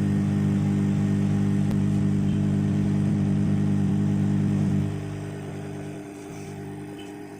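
Hot air gun running with a steady motor-fan hum, blowing hot air on a smartphone's back panel to soften its adhesive. About five seconds in the sound drops sharply and carries on much quieter.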